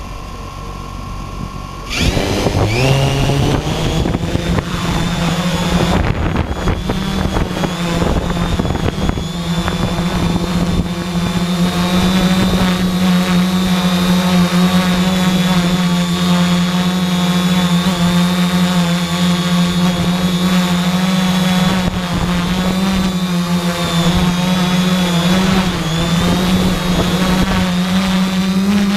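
3D Robotics IRIS quadcopter's brushless motors and propellers spinning up about two seconds in, rising quickly in pitch, then running as a steady hum with a high whine above it that wavers slightly in pitch.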